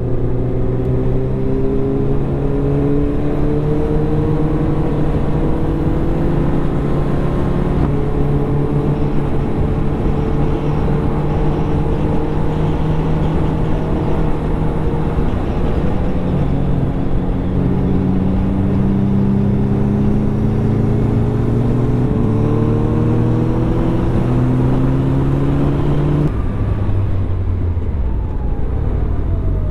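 Suzuki Hayabusa's inline-four engine running at speed on the road, heard from the rider's seat under wind rush; its pitch climbs gradually as the bike pulls, dips around the middle, and drops sharply near the end as the revs fall.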